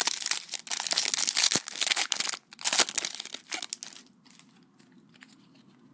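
Foil trading-card pack wrapper crinkling and tearing as it is opened by hand. The crackle stops after about three and a half seconds.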